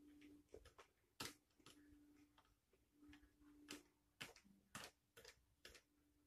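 Faint, irregular clicks from eating a salad close to the microphone, about seven soft ticks at uneven intervals.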